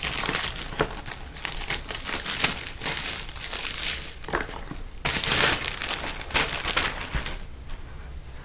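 Clear plastic wrapping crinkling and crackling as it is pulled off a cardboard box, loudest about five seconds in and dying away near the end.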